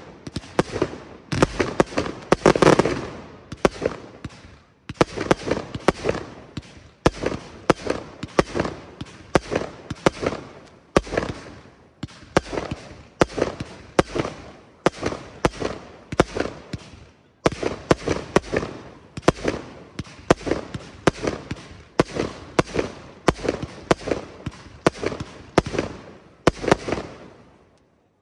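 Aerial fireworks firing shot after shot, a steady run of sharp bangs about two a second that fades out near the end.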